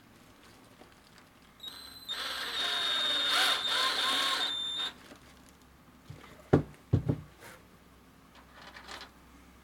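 Cordless drill driving a screw-in stud into a rubber boot sole. It runs for about three seconds with a steady high whine. After it stops come two sharp knocks in quick succession, the loudest sounds here.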